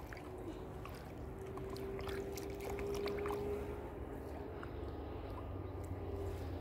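Faint water movement as a large fish is held in the lake's edge water inside a landing cradle, over a steady low hum and a faint held tone.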